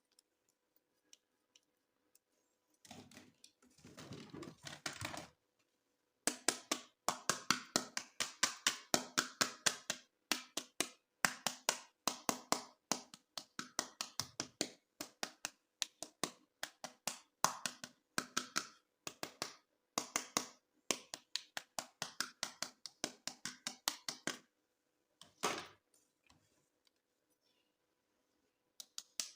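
Hands unboxing toys: a few seconds of rustling or scraping, then long runs of quick, sharp clicks and taps, several a second, with short pauses between runs.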